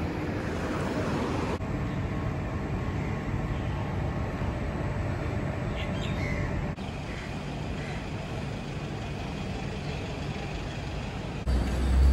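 City street ambience: steady traffic noise with people's voices in the background, in several short clips cut together. Near the end a loud low-pitched hum starts abruptly.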